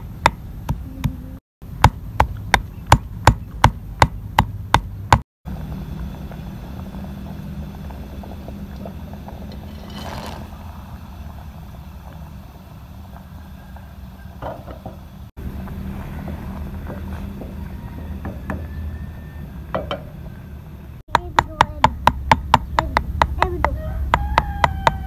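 Stone pestle pounding coriander and green chilies in a stone mortar: sharp, even knocks about three a second. After a cut, a steady sizzle of boondi frying in hot oil. The pounding starts again near the end.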